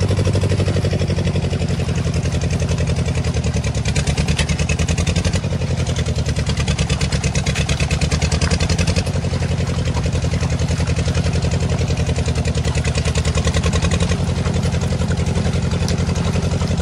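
A small engine running steadily, with a fast, even beat over a low hum.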